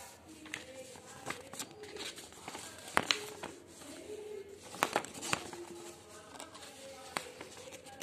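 A sheet of origami paper being handled and creased, with a few sharp crinkles, the loudest about three and five seconds in.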